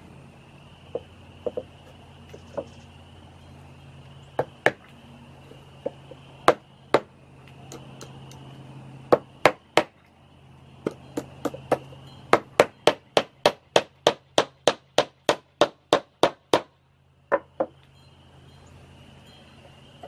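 Hammer driving nails into a birdhouse made of old weathered cedar boards. There are scattered single blows at first, then a quick run of about four strikes a second for several seconds past the middle, and two last blows near the end.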